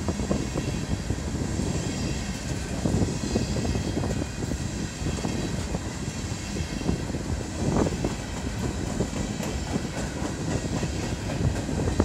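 Empty coal hopper cars of a long freight train rolling past, their steel wheels rumbling and clattering on the rails, with a few louder knocks about two-thirds of the way through and again at the end.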